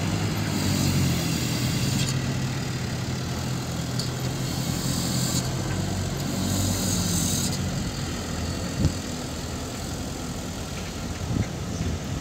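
Engine of a loaded light dump truck running steadily at low revs as it rolls slowly down a rough dirt track, with intermittent bursts of hiss and a single sharp knock about nine seconds in.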